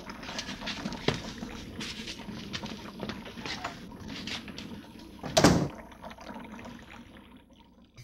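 A rubber plunger being worked in a clogged toilet: scattered wet knocks and sloshing, with one louder burst about five and a half seconds in, fading out near the end.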